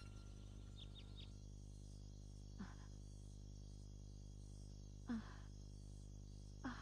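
Faint night ambience of crickets chirring steadily, high-pitched. Three short soft sounds come a couple of seconds apart, the middle one the loudest.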